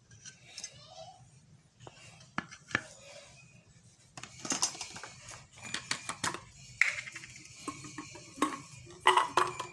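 Small hard objects being handled and set down on a tabletop: a few scattered clicks, then from about four seconds in a busy run of clicks and light metallic clinks, loudest near the end.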